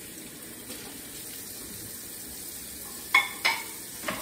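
Kitchen tap running into a sink while dishes are washed, with two sharp clinks of dishes a little over three seconds in and another just before the end.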